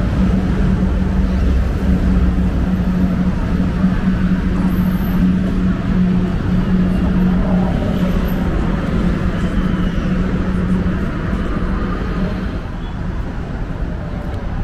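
City street traffic noise with a steady low hum, which fades out about twelve seconds in.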